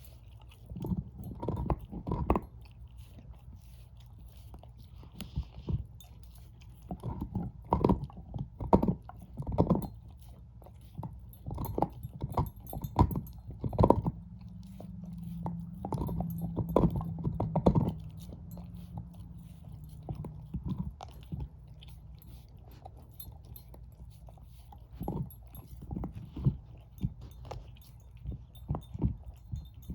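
Shepherd-mix dog chewing a bone: irregular loud crunches and gnawing clicks in bursts, separated by quieter pauses.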